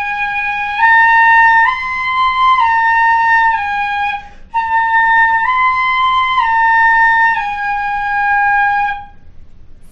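Pífano (cane fife) in C playing a slow stepwise exercise: G, A, B, A, G, a short breath about four seconds in, then A, B, A, G, each note held about a second with a clear, steady tone.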